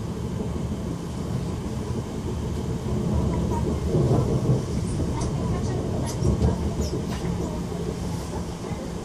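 Passenger train running along the track, heard from inside the carriage: a steady rumble that swells twice, about four and six seconds in.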